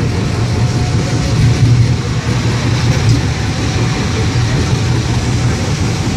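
Steady low rumble of a tram running along wet rails, heard from inside the car.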